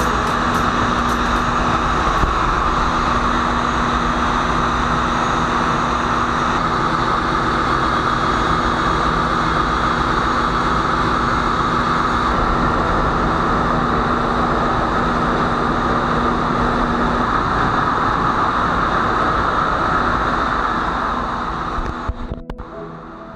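Loud, continuous din of running machinery in a ship's engine room, a steady roar with a constant hum under it. It cuts off abruptly near the end.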